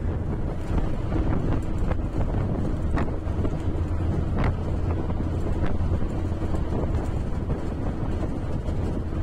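Steady low engine rumble and road noise heard from inside a moving bus, with a few faint clicks and rattles.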